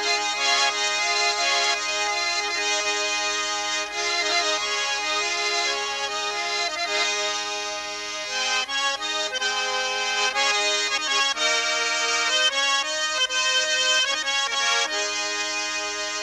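Instrumental music: held chords with a melody that moves note by note, the notes changing faster in the second half.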